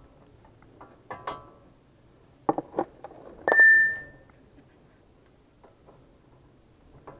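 A few light metal clinks, then about three and a half seconds in a metal pipe set down on a concrete floor clangs with a clear ringing note that fades within a second.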